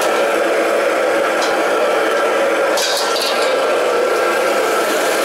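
Steady noise of a commercial wok station running: gas wok burners and the extraction hood. A few light metal clinks of utensils sound about a second and a half in and again around three seconds.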